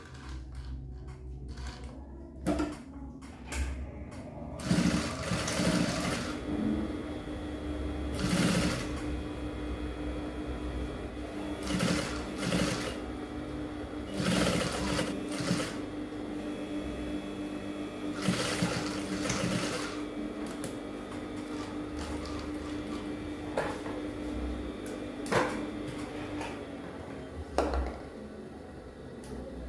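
Sewing machine running steadily while top-stitching a fabric collar. It starts about five seconds in and stops a few seconds before the end.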